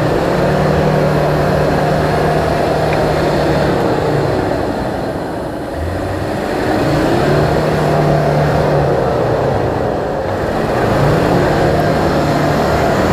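A 4x4 off-roader's engine revving hard in mud, held at high revs in three long pulls with two brief let-offs, about four and ten seconds in.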